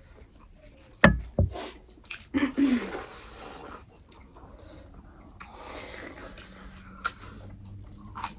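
Eating sounds at a table during a meal. A sharp knock comes about a second in, with a softer one just after. Two longer stretches of hissy noise and small clicks follow.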